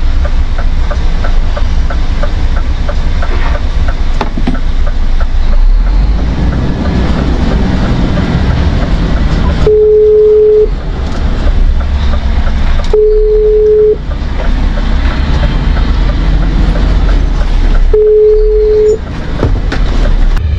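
Scania XT G440 truck's diesel engine running under way, heard inside the cab as a loud, steady low rumble, with a light regular ticking in the first few seconds. Three long single-tone beeps of about a second each sound, the first about halfway through, the second some three seconds later and the third near the end.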